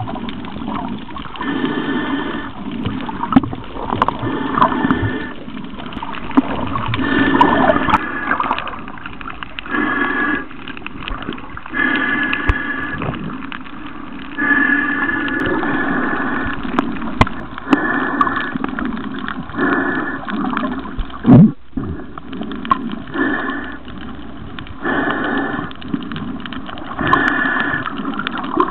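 Water gurgling and sloshing in uneven surges about every two seconds, as heard by a camera at the water's surface while snorkeling. One sharp thump about two-thirds of the way through is the loudest moment.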